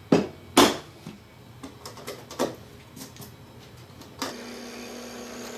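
Wood chisel chopping a mortise in a cherry block: two hard strikes close together at the start, then lighter knocks and taps over the next few seconds. About four seconds in, a steady hum with a low tone starts and carries on.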